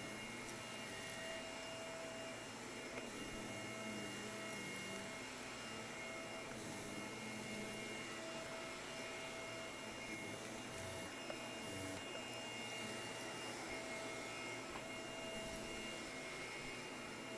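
Shark vacuum cleaner running steadily, its motor noise carrying a few held whining tones.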